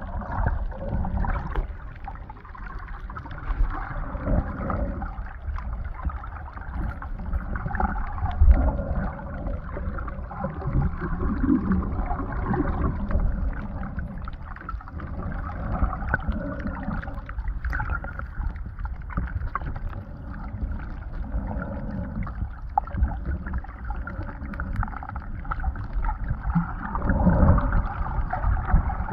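Muffled underwater noise picked up by a camera submerged over a reef: a continuous low rumbling and sloshing of water that swells and fades.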